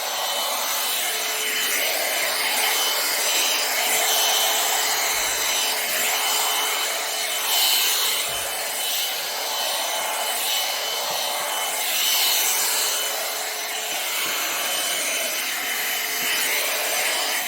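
Hot-air dryer brush blowing steadily, with a thin motor whine in the airflow, as it is worked through hair.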